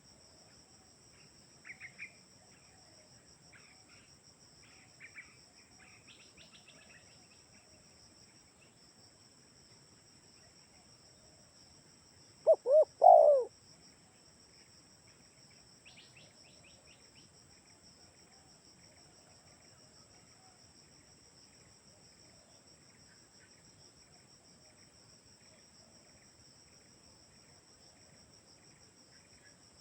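Spotted dove (tekukur) cooing: one short three-note phrase about halfway through, two quick notes and then a longer one. Under it runs a steady high insect trill, with a few faint chirps from small birds.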